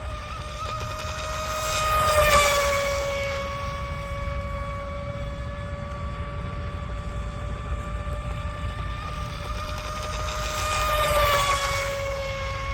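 Electric RC racing boat's 28 mm brushless motor and propeller running flat out with a steady high whine. It passes close twice, about two seconds in and again about eleven seconds in, growing louder each time and dropping slightly in pitch as it goes by.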